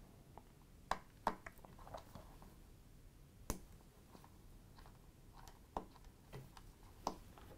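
A handful of faint, irregular clicks and ticks from a small precision screwdriver as it backs out the spring-loaded heat-sink screws over the CPU on a MacBook Pro logic board.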